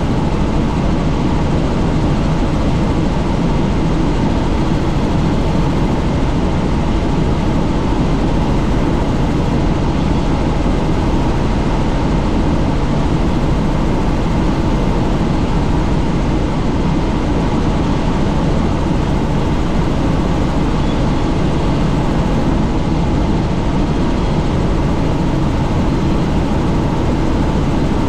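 Helicopter in flight heard from on board with the doors off: a steady, loud drone of rotor and engine mixed with rushing air.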